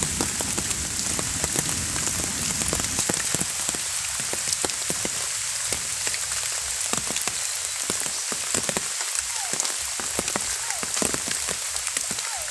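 Rain falling on pooled water and wet ground: a steady hiss dotted with many small drop ticks.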